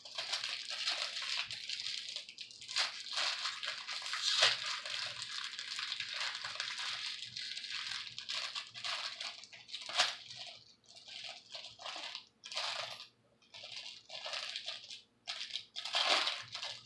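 Small clear plastic bag crinkling as hands work it open to get a bracelet out. The crinkling is nearly continuous at first, with a couple of sharper crackles. After about ten seconds it breaks into shorter separate rustles.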